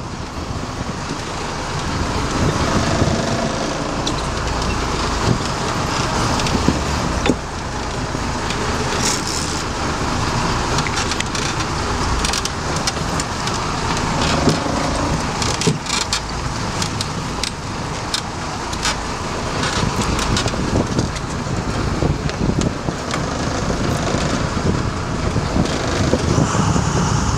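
Steady rumble of a sportfishing boat's engine mixed with wind across the microphone and water rushing past the hull, with scattered sharp clicks and knocks.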